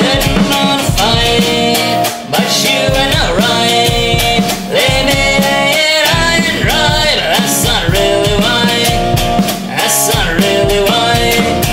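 Rock song played by a full band: guitars and drum kit, with a bending lead melody line on top.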